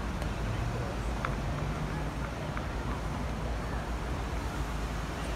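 Outdoor city ambience: a steady rumble of road traffic, with a couple of faint clicks.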